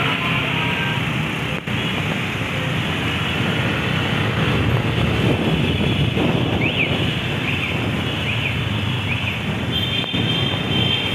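Motorcycle engines running in a moving convoy, with wind rushing over the microphone. A few short high chirps come in the second half.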